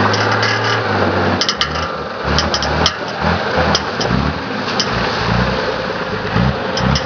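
Off-road 4x4 engine running, steady at first, then uneven low pulsing, with a few sharp clicks scattered through.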